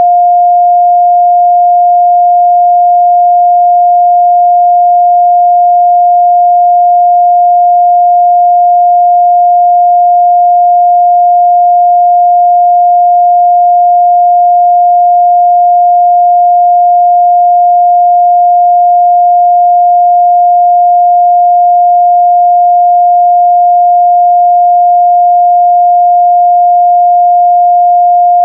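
A steady, loud 706 Hz sine-wave test tone, a single pure pitch held unchanged.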